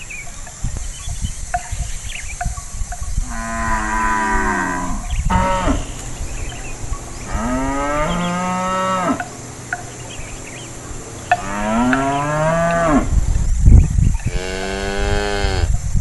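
Cows mooing: four long, drawn-out moos, each falling in pitch, spaced a few seconds apart. A brief low rumble comes just before the last moo.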